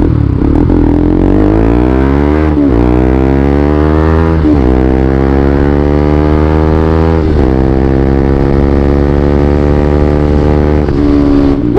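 Bajaj Rouser NS200 single-cylinder motorcycle with an aftermarket Villain muffler accelerating through the gears: the engine note climbs, drops at each of three upshifts, then holds nearly steady.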